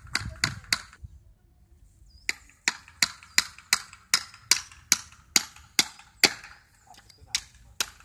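Hammer driving nails into wood, fast even blows about three a second. The blows stop for about a second near the start and again near seven seconds.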